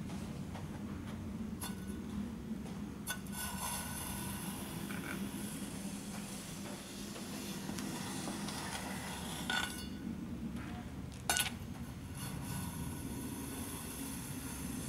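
A rake drawn through fine gravel: a gritty scraping rustle of small stones that comes and goes with the strokes, with two sharp clinks of stone a little under two-thirds through. A steady low rumble lies underneath.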